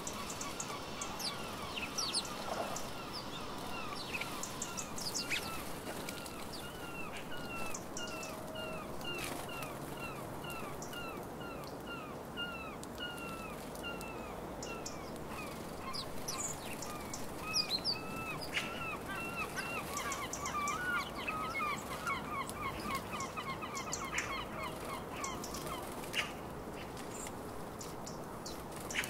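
A flock of house sparrows chirping. One bird keeps up a steady run of repeated chirps, about two a second, over the other birds' scattered calls. There are occasional sharp flutters of wings among the birds. The run of chirps fades near the end.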